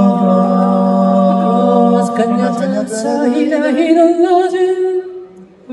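Male vocal group singing held notes a cappella, trying to find the opening pitch of a song without accompaniment. After about two seconds of steady notes, a voice slides upward with a wavering vibrato, and the singing fades out about five seconds in.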